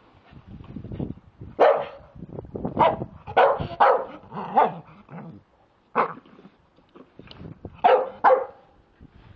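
Staffordshire bull terrier barking, about nine short sharp barks in uneven bunches with brief gaps between them.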